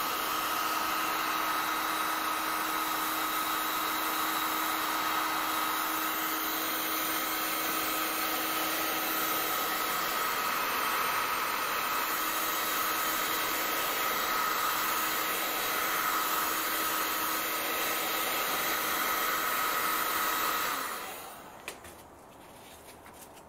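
Heat gun running steadily with a faint high whine, blowing hot air to soften the glue holding a car door speaker's cover in its mount. It switches off near the end.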